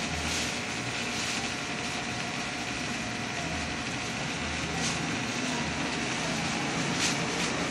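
Steady engine and road noise of a vehicle, a low rumble under an even rushing noise.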